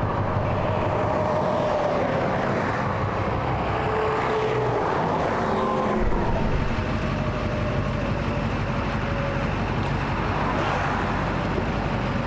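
2009 Chevrolet 3500 Duramax diesel dually pickup driving, with steady road and engine noise. The low rumble deepens about halfway through.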